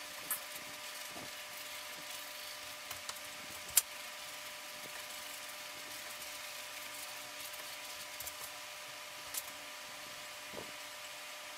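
Steady room hum with a few faint high tones, broken by several sharp clicks, the loudest about four seconds in.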